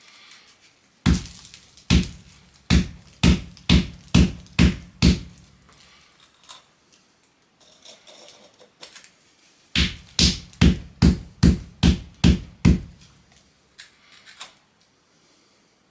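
Two runs of about eight heavy thuds each, roughly two a second, with a pause between: dry epoxy-granite mix being tamped down to compact it inside an extruded aluminium profile.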